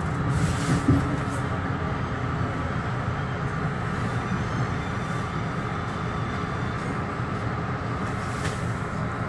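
Metro-North commuter train running along the track, heard from inside at the front: a steady rumble of wheels on rail with a faint whine above it. There is a sharper knock about a second in and a couple of short hissing bursts near the start and near the end.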